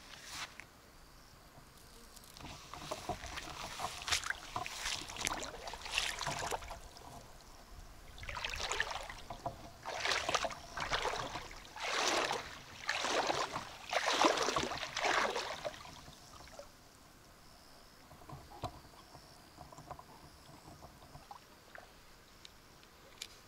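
Water swishing and splashing in a run of repeated strokes, roughly one a second, for about a dozen seconds, then dying down to a few faint splashes and ticks.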